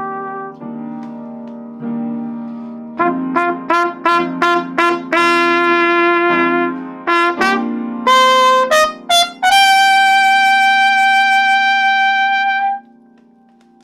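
Trumpet playing a loose improvised line: a quick run of short separate notes, then one long high note held for about three seconds that cuts off near the end. Low sustained accompanying notes sound underneath.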